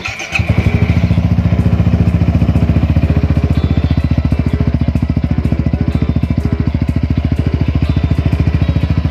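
Yamaha XMAX300 scooter's single-cylinder four-stroke engine idling through a PR2 aftermarket exhaust muffler, loud with a steady, even pulsing beat. It is played as a sound test of the new exhaust.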